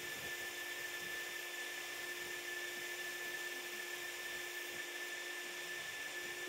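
ComMarker Omni 1 UV galvo laser engraver running while it marks steel: an even hiss with a thin, steady high whine and a fainter lower hum that hold unchanged.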